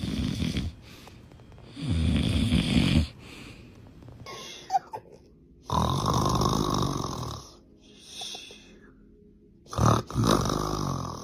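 Snoring: about four loud, rattling snores a few seconds apart, with quieter breaths between them.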